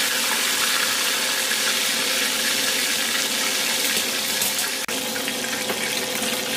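Hot oil sizzling steadily around a coated whole chicken shallow-frying in a wok, on its second fry. The sizzle cuts out for an instant about five seconds in.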